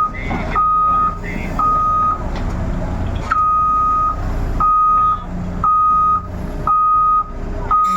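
Backup alarm of heavy equipment beeping about once a second in single steady tones, with a brief pause about two seconds in, over the low rumble of a diesel engine running.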